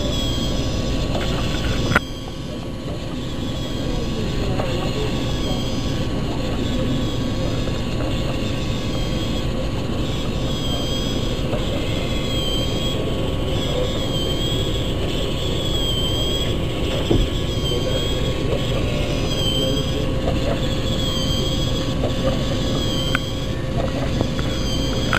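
LEGO electric motor and plastic gear train running steadily, whirring as the chicken's walking and wing-flapping mechanism cycles. A short squeak repeats about every second and a quarter, and there are two sharp clicks.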